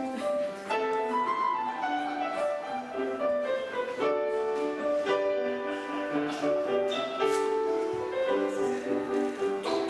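Grand piano playing, a steady run of changing notes and chords.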